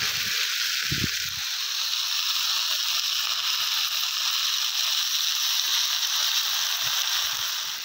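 Diced vegetables, chicken fillet and mushrooms frying in butter in a hot cast-iron kazan: a steady sizzle. A brief low thud comes about a second in.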